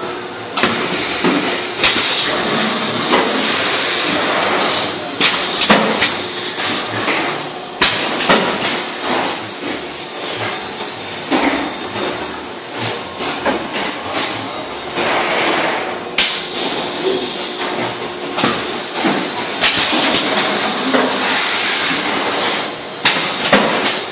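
Industrial plastics-processing machinery running: a steady hiss with irregular sharp knocks and clanks.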